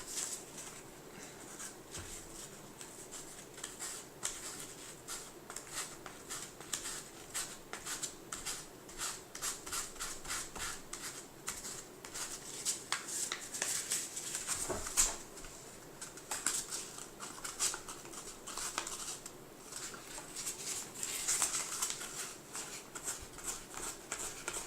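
Fine P800-grit sandpaper rubbed in short, irregular scratchy strokes over thin headphone-cable wires, sanding off their enamel coating.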